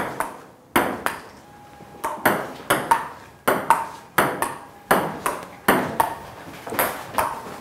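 Table tennis rally: the ball knocking off the paddles and the table in quick alternation, about two to three sharp knocks a second, some with a short ring.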